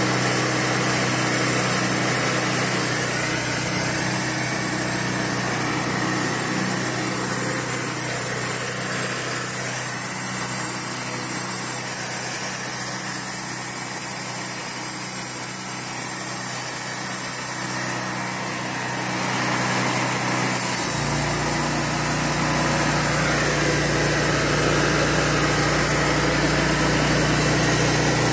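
Wood-Mizer portable band sawmill running under load, its engine humming steadily while the band blade saws through a cedar cant, with a steady high hiss over the engine. About twenty seconds in, the low hum deepens.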